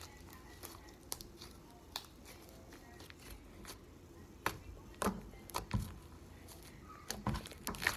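Homemade slime being squeezed in the hands and pressed flat against a tabletop: scattered soft clicks and squishes, with a few louder knocks and thumps in the middle and near the end.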